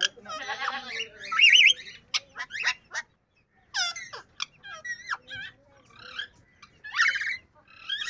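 Yellow Indian ringneck parakeet chattering: a run of short squawks, chirps and whistles, with a loud wavering trill about one and a half seconds in and a brief pause just after three seconds.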